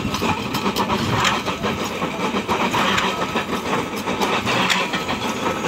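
Farm tractor engine running steadily in the field, powering a straw baler.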